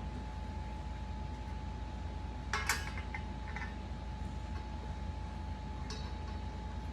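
Metal parts of a flat-pack projector stand clinking and knocking together as it is assembled: a quick cluster of clicks about two and a half seconds in, a few lighter taps just after, and one more click near the end, over a steady low hum.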